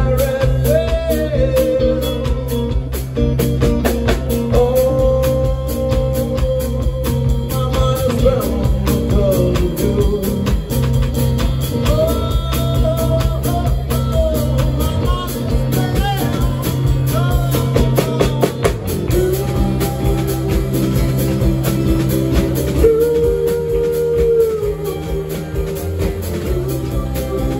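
A rock band playing live: acoustic and electric guitars, electric bass and drum kit, with a melody line over a steady bass.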